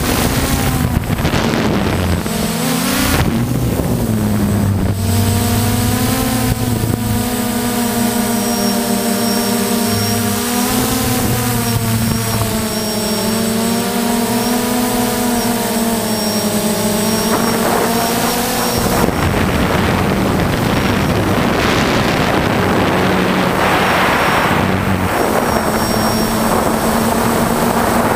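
Quadcopter's electric motors and propellers whirring, heard through its own onboard camera, a steady hum whose pitch wavers slowly with throttle, with wind noise on the microphone. About two-thirds of the way through, the clear hum gives way to a rougher, noisier rush.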